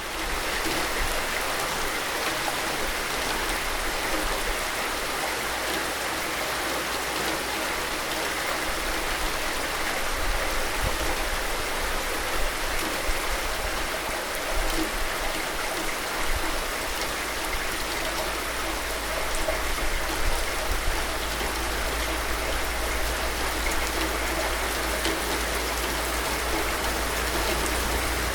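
Steady rain: a dense, even hiss with faint scattered drop ticks and a low steady rumble underneath.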